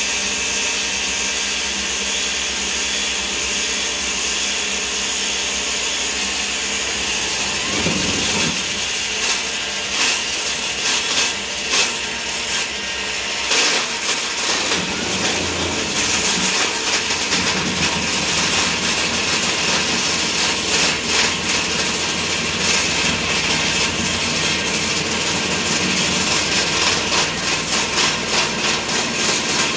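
Table saw running with its blade cutting into a 4x4 teak post that a cordless drill slowly rotates over it in a homemade table-saw lathe jig, turning the post into a round dowel. A continuous machine noise with rough, uneven cutting rasps.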